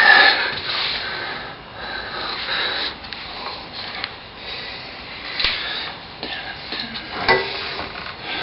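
Scraping and knocks of a motorcycle front wheel being handled and worked into place in the forks, with a sharp knock right at the start and another about seven seconds in.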